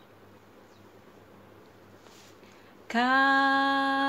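A woman singing unaccompanied: after a quiet pause she comes in about three seconds in on one long held note.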